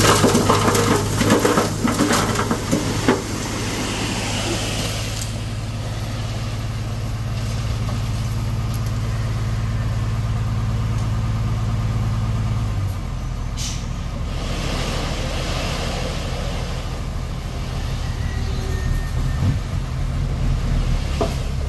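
Dump truck tipping a load of earth and stones: the load pours off the raised bed with a rumbling clatter over the first few seconds, over the steady hum of the truck's engine. About thirteen seconds in the engine drops to a lower pitch, and a short hiss follows.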